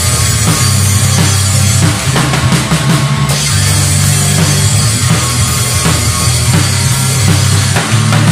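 Pop-punk rock band playing an instrumental passage: drum kit, electric bass and electric guitar together, loud and driving.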